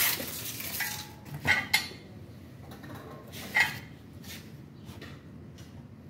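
Steel floor jack and its handle being handled: a few sharp metallic clanks and clinks, the loudest two in quick succession about a second and a half in and another about three and a half seconds in.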